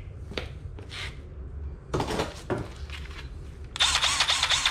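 Cordless drill trigger pulled near the end, its motor and bit spinning freely at a steady high whine before touching the plastic bumper. A few knocks and rustles of handling come before it.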